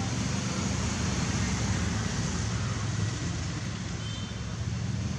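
Steady outdoor background noise: a low rumble under an even hiss, with a faint short high chirp about four seconds in.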